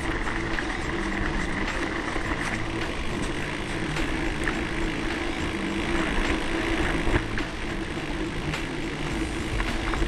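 Wind rushing over the microphone and rattling of a camera mounted on a mountain bike riding a rough dirt track, with frequent sharp clicks and knocks from the bumps.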